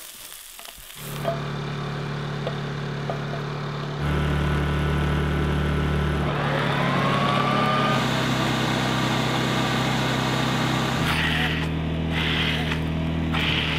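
Honda EU2000i inverter generator running with a steady engine hum that steps up in speed and loudness about four seconds in, as it takes up the load of the kitchen appliances it powers. Near the end, short bursts of a blender motor run over the hum.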